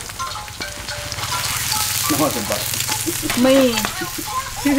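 Food sizzling steadily as it fries in hot oil in a pan, stirred now and then.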